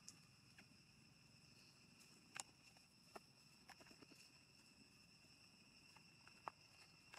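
Near silence: a faint steady high-pitched insect drone, with a few faint clicks scattered through it.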